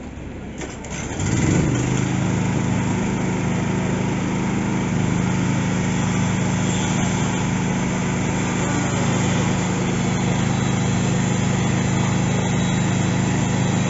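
A vehicle engine picks up about a second in, then runs loud and steady.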